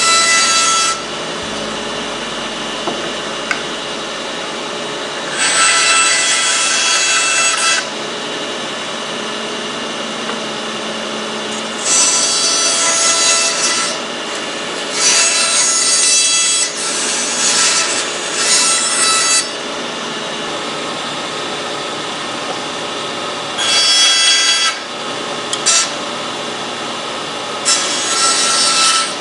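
Band saw cutting a tight curve through a thick wooden board in about six bursts of one to four seconds, the blade's rasping hiss rising each time it bites into the wood. Between the cuts the saw's motor and blade run steadily.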